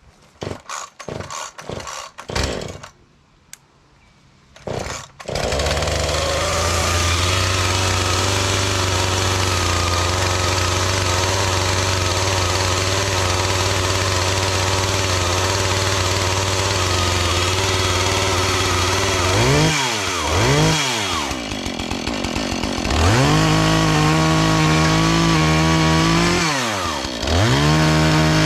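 Husqvarna 435 two-stroke chainsaw being pull-started: a few short bursts, then it catches about five seconds in and idles steadily. From about two-thirds of the way through it is revved up and down, twice held at high throttle for a few seconds.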